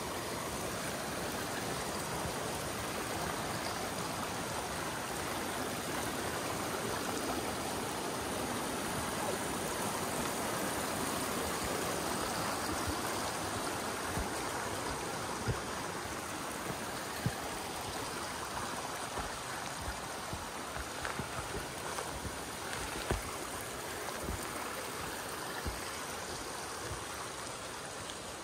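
Steady rush of a mountain stream, with scattered soft thumps from about halfway in.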